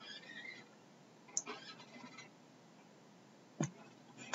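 Two faint computer mouse clicks, about two seconds apart, over quiet room tone.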